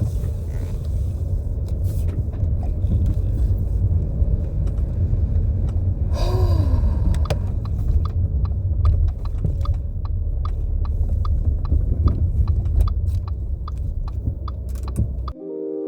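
Steady low road rumble inside a moving car, with scattered sharp clicks and a brief falling tone about six seconds in; it cuts off just before the end.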